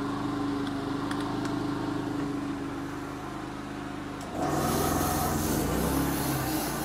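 Steady machine hum from the running generator and water-cooling setup. About four seconds in, the Omega Air Charger personal high-pressure (PCP/HPA) compressor starts and runs with a low, rhythmic chug and a hiss as it begins filling the air rifle.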